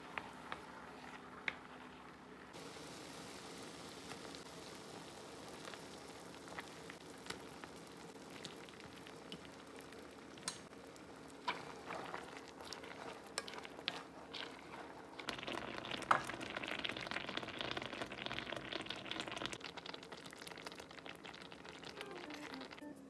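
Thick tteokbokki sauce bubbling and sizzling at a simmer in a stainless steel pan, with scattered sharp clicks of wooden chopsticks against the pan as it is stirred. The bubbling grows louder for a few seconds past the middle.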